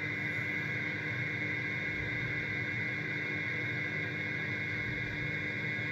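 Bendix RA-1B aircraft radio receiver's audio output between transmissions: steady hiss and hum with a few faint steady whistling tones.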